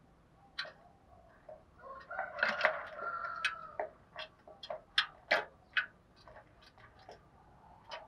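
Caged spotted dove giving a short, low coo about two seconds in, among a scatter of sharp clicks and taps.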